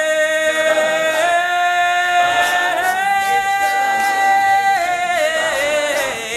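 All-male a cappella group singing without instruments: voices hold long sustained notes that step upward in pitch, over backing harmonies.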